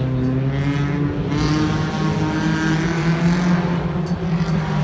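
Car engine and exhaust running at steady revs, a continuous droning note with a rise in pitch about a second in.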